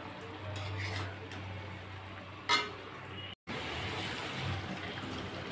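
Steel spatula stirring and scraping vegetables and fish heads in a metal kadai, with one sharp clink of the spatula against the pan about two and a half seconds in. After a brief break, water is poured into the pan and splashes over the vegetables.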